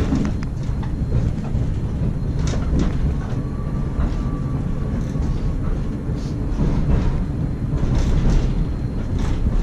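Bombardier Variotram low-floor tram heard from inside the passenger cabin as it runs along street track: a steady low rumble with scattered short clicks and knocks, and a faint thin whine briefly around the middle.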